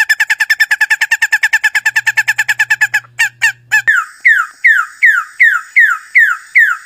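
A bird giving strange, machine-like calls. First comes a fast, even run of about a dozen beeps a second for some three seconds, then a few sharp clicks, then a series of falling chirps, about three a second.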